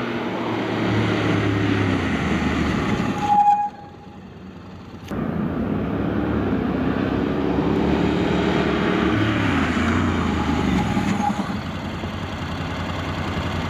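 Honda NC750X's parallel-twin engine running as the motorcycle comes in and slows hard to a stop from 90 km/h, twice, with a brief high squeal as each stop comes. The first run cuts off suddenly about three and a half seconds in, and the second starts about five seconds in.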